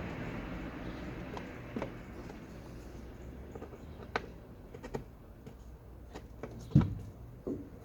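Scattered small clicks and knocks of an Allen key working screws into a plastic housing, with a louder knock about seven seconds in.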